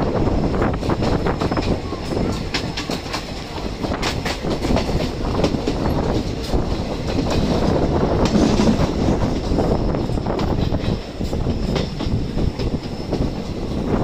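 Kanchanjunga Express passenger coach running on the rails: a steady rumble of wheels on track, with irregular clicks as the wheels cross rail joints.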